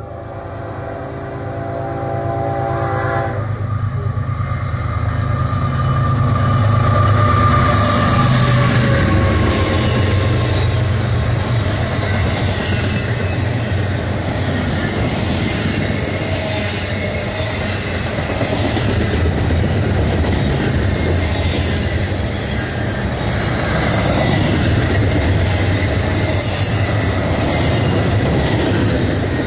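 A CSX GE ES44AH diesel locomotive sounds its air horn, a chord of steady tones that ends about three and a half seconds in. The locomotive's engine rumble builds as it passes. Then comes the steady rumble and clicking of double-stack intermodal well cars rolling over the rails.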